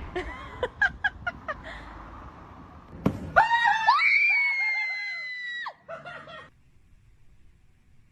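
A string of quick taps or clicks, then a thud and a loud, high-pitched scream held steady for about two seconds before cutting off.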